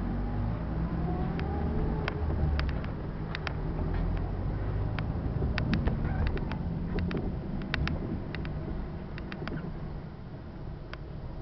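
A car's engine and road noise from inside the cabin while driving, a steady low rumble, with many short sharp clicks scattered through it.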